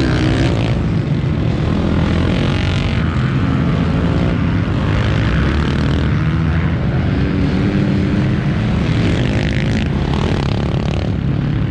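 Several racing motorcycles running hard at once through a dirt track corner, their engine notes overlapping and rising and falling in pitch as the riders open and close the throttle.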